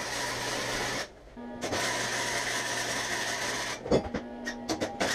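Electric arc welding on a metal bracket: a steady hiss that stops for about half a second around a second in, then resumes and breaks into short stop-start bursts of tack welding near the end.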